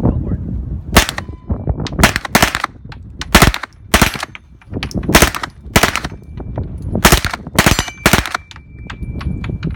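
MP5 submachine gun firing a string of about ten loud shots at irregular intervals. A faint ringing tone lingers after the last shots.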